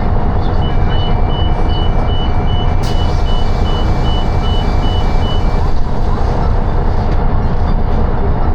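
Steady engine and road rumble of a city bus, with a rapid run of high electronic beeps, about three a second, that stops a little past the middle. A single sharp click comes about three seconds in.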